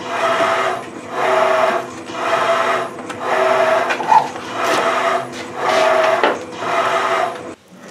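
A machine tool cutting splines into the end of a steel Tesla Model S half-shaft. The cutter makes about seven passes, roughly one a second, each with a whine of the same pitch. The sound stops just before the end.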